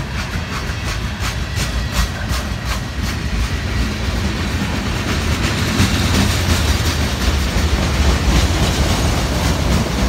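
Freight train cars rolling past close by: a steady low rumble of steel wheels on rail, with a quick run of wheel clacks over rail joints in the first few seconds and a hiss that grows a little louder toward the end.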